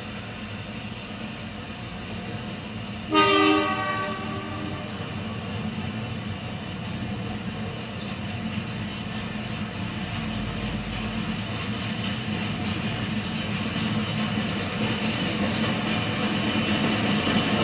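48 class diesel locomotive engine running steadily and growing louder as the stock train approaches, with a short multi-tone horn blast about three seconds in.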